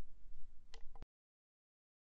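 Faint low background hum with a brief short sound in it, cutting off abruptly about a second in to dead silence.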